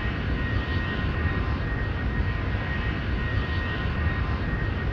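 Boeing 737 jet engines running steadily, a continuous even noise with a faint steady high whine over it.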